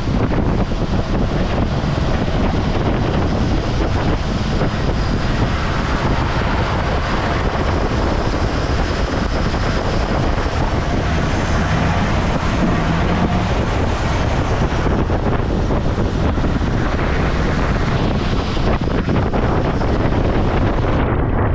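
Wind buffeting the microphone on a moving motorboat, over the boat's steady running noise.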